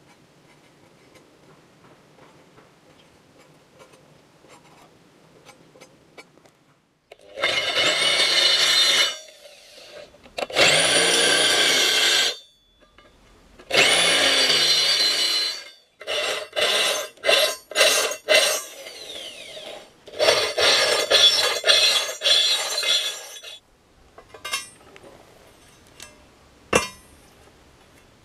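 Faint scratching of chalk on a rusty steel plate, then an electric drill boring holes through the steel plate in a series of loud bursts of one to two and a half seconds, each starting with a rising motor whine, the later bursts shorter and choppier. A few light clicks and one sharp tick near the end.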